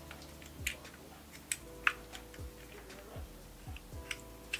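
Small plastic clicks and taps as a phone-holder clamp is handled and fitted onto the top of a ring-light tripod: a few separate sharp clicks, the clearest about two seconds in and just before the end, over a faint steady hum.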